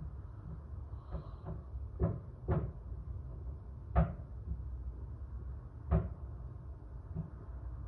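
Irregular knocks, about seven over several seconds, the loudest three at roughly two-second intervals, over a steady low rumble.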